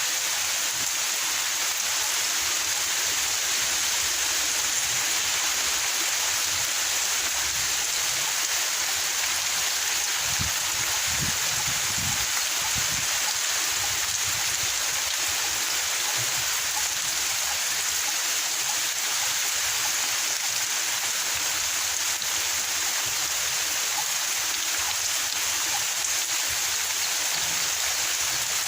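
Heavy rain pouring steadily during a storm, an even hiss with no letup.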